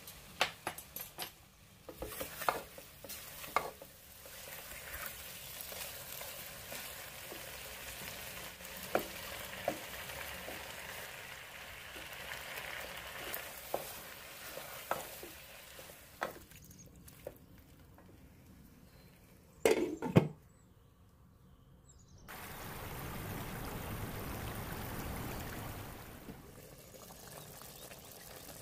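Food sizzling in a frying pan as it is stirred, with the utensil clicking and scraping against the pan. About twenty seconds in come two loud knocks. After a short quiet gap, a lower, steady hiss runs for a few seconds.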